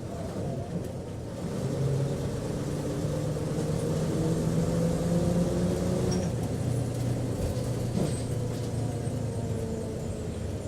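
Bus engine running, heard from inside the cabin. The drone grows louder about two seconds in and drops in pitch about six seconds in, with a single short knock near eight seconds.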